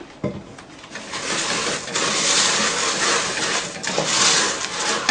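Dry rice bubbles (crisp rice cereal) being poured into a saucepan of melted marshmallow and butter: a dense rustling hiss that builds about a second in and carries on to the end.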